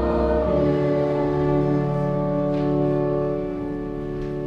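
Church organ holding a sustained chord, moving to a new chord about half a second in and holding it until it stops at the very end.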